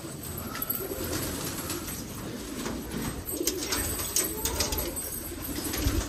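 Domestic fancy pigeons cooing in a loft, low and repeated, with a few light clicks in the second half.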